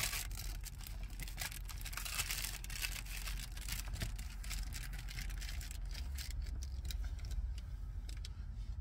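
Rustling and scattered soft clicks of window covers being handled and fitted against a minivan's windows, busiest over the first six seconds, over a steady low rumble.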